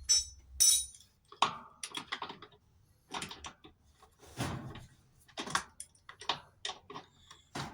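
Irregular metallic clicks and knocks of a small wrench working the nuts on a washing machine's frame, with a ringing clink near the start.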